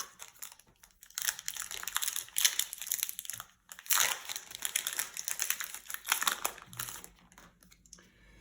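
Crinkly plastic booster-pack wrapper being handled and opened, in two long bouts of dense crackling with a short break between them.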